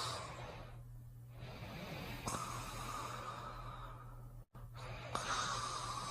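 Cartoon snoring: a sleeping animated character's drawn-out snores alternating with whistled breaths, repeating about every three seconds.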